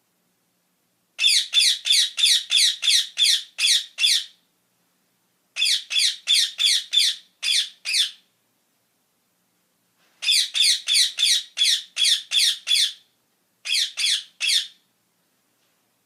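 Rose-ringed parakeets giving loud, high-pitched squawks in four quick runs, about three calls a second. Each call falls in pitch, and the runs are separated by short silences.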